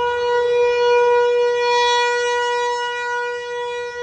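Outdoor tornado warning siren sounding a loud, steady held tone: a storm warning is in force.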